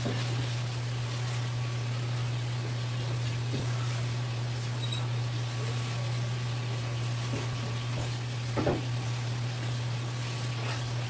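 Steady low machine hum with faint background noise, broken by a couple of soft knocks from fish pieces being handled on a cutting board: a faint one about three and a half seconds in and a clearer one a little past eight seconds.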